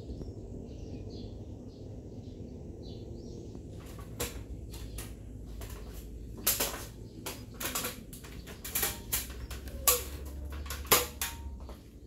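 Kawashuki KS-515 15-watt mini ceiling fan running with a steady low hum. From about four seconds in there are irregular sharp clicks and knocks, the loudest two near the end.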